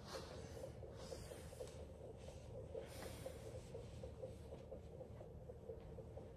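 A woman in labor breathing through a contraction: a few slow, airy breaths, heard over a faint steady hum.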